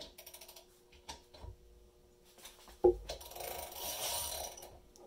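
Harbor Freight Icon 3/8-inch-drive ratchet clicking in short quick runs. About three seconds in there is a sharp crack as the nut, torqued to 50 foot-pounds, breaks loose. A rapid stretch of ratcheting follows as the nut is turned off.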